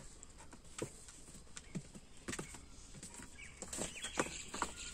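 Faint scattered taps and clicks as a Pomeranian puppy moves about inside a wire-mesh kennel on a leash, with a few faint chirps in the last second or two.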